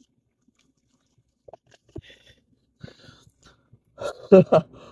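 A person eating and drinking close to the microphone: a few faint sips and mouth clicks, then a short, louder bout of mouth noises about four seconds in as he bites into a donut.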